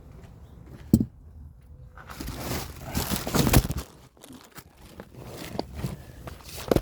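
Seat upholstery being handled and tucked in, with loud rustling and crinkling of fabric and vinyl for a couple of seconds, and a sharp knock about a second in and again near the end.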